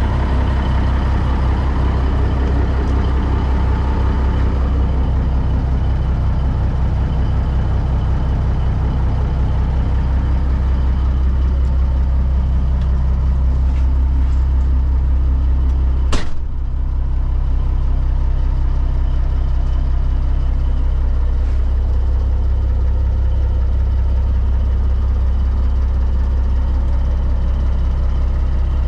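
The heavy diesel engine of a 1989 Peterbilt 379 truck tractor idling steadily, with one sharp click about sixteen seconds in.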